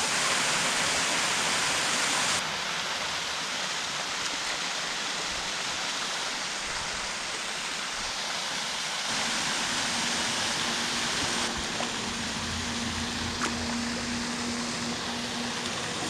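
Steady rushing and splashing of a small waterfall pouring down a rock ledge into a lake. A faint steady hum joins about nine seconds in.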